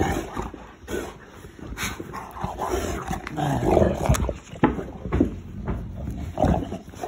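Two Boerboels play-fighting, mouthing at each other's necks, with short whines and yips over irregular scuffling and knocks.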